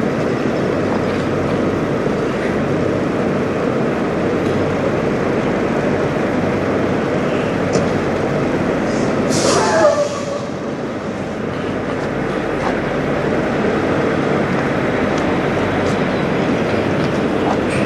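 Steady rumble of idling semi-truck diesel engines. About halfway through comes a brief hiss with a falling whistle, after which the rumble is a little quieter.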